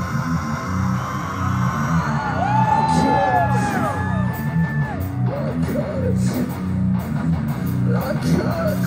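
Live heavy metal band playing loud through the PA, a heavy, chugging guitar-and-bass riff with drums. High notes slide up and down over it, mostly between about two and five seconds in.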